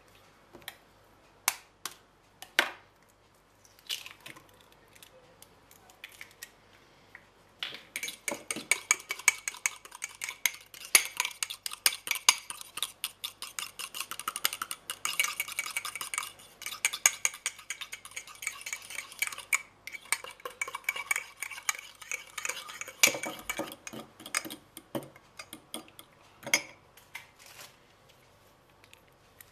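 A metal teaspoon clinking and scraping against the inside of a ceramic mug as a mug-cake mixture is stirred. A few single clinks come first, then rapid continuous stirring for about fifteen seconds, slowing to a few last taps.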